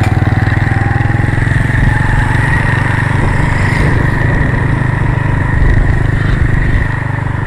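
Small motorcycle engine running steadily while riding along, heard close up from on board.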